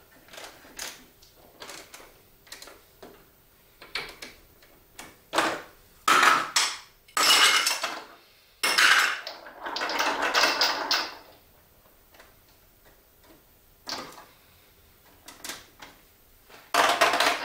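Irregular clicks and knocks, then longer bouts of rattling clatter from marbles and hard plastic Duplo-block pieces of a marble run, loudest between about six and eleven seconds in and again near the end.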